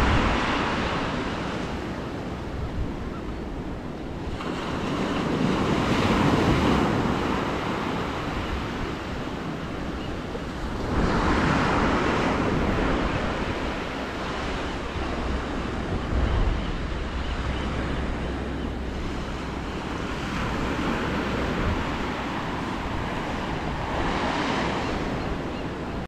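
Ocean waves washing onto the shore: the surf swells and recedes in a slow cycle, cresting about every five or six seconds.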